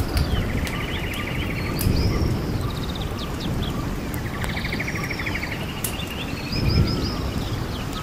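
Forest ambience: songbirds singing, with a rapid trill near the start and another about halfway through, plus higher chirps and whistles, over a steady low rumble.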